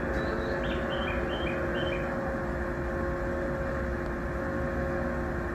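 Steady electric hum of a train standing at the station platform, holding a few constant tones over a low rumble. In the first two seconds a quick run of high, bird-like chirps alternates between two pitches.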